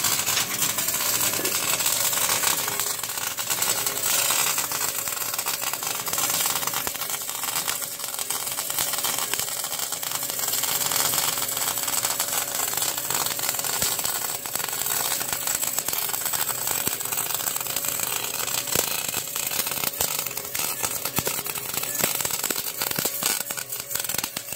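MIG welder arc crackling steadily while welding steel exhaust pipe; the welder is a small 110-volt unit run with shielding gas.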